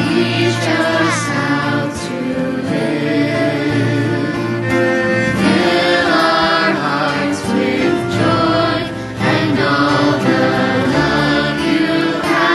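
Congregation singing a worship song together, accompanied by acoustic guitar, cello and piano.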